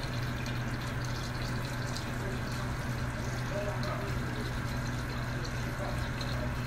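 Water pouring steadily into a large cooking pot, with a steady low hum underneath.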